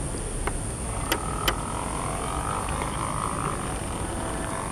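Outdoor ambience: a steady low rumble under a constant high-pitched hiss, with a few sharp clicks about a second in and a faint wavering sound in the middle.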